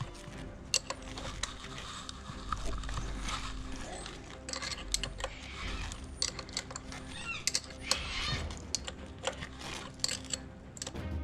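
Hand tools working on metal: irregular clicks, clinks and knocks, with a few short squeaks about two-thirds of the way through.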